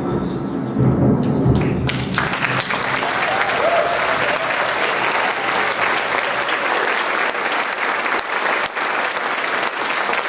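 Music with a low rumble ends about two seconds in, and audience applause takes over.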